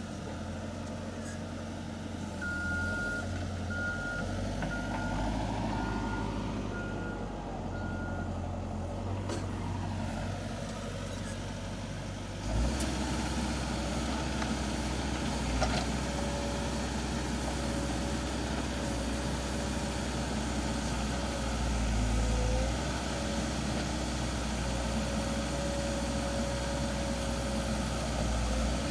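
Excavator's diesel engine running steadily, with its warning alarm beeping about seven times in the first several seconds. Later a wavering whine runs over the engine.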